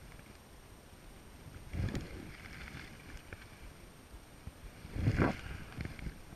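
Lake water lapping against the side of a small fishing boat, with wind on the microphone and two louder splashy slaps, one about two seconds in and a louder one about five seconds in.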